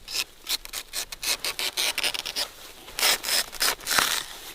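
Fibrous sheath being scraped off a palm trunk in quick, repeated rasping strokes as the palm fibre is stripped to reach the palm heart.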